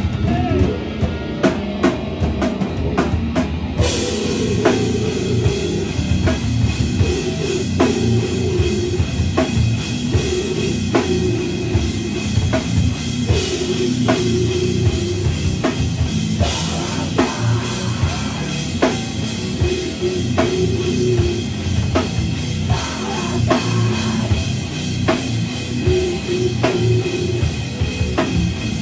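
Rock band playing live: drum kit beating steadily with kick and snare under electric guitar. The sound turns fuller and brighter about four seconds in.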